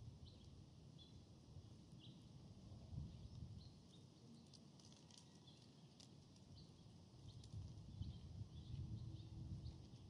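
Faint forest ambience: scattered short, high chirps over a low, uneven rumble that swells twice.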